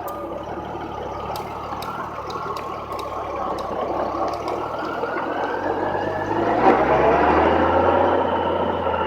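Honda Gold Wing motorcycle engine running, its pitch dipping and then climbing as it speeds up about two-thirds of the way through. There are a few sharp ticks in the first few seconds.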